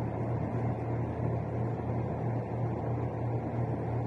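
Steady low background hum with a faint even hiss, unchanging throughout.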